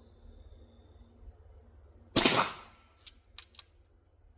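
A single shot from an antique Girandoni-type repeating air rifle, its reservoir charged to 700 psi: a sharp report with a short rush of escaping air that tails off over about half a second. About a second later come three faint ticks.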